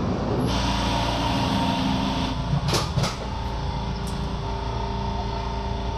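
Electric commuter train heard from inside the carriage: a steady low rumble with several held electric tones over it.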